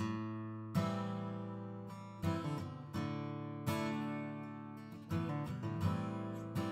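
Background music: strummed acoustic guitar chords, each one ringing out before the next, with no singing in this stretch.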